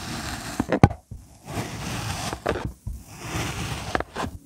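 Kinetic sand being sliced with a plastic cutting tool: a gritty scraping in several strokes with short breaks between them, and a sharp click a little under a second in.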